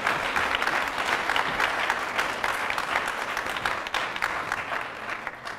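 Audience applauding: dense clapping that slowly dies away near the end.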